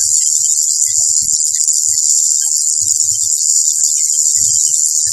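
Tattoo machine running in a steady, high, hiss-like buzz as it works the needle into the skin.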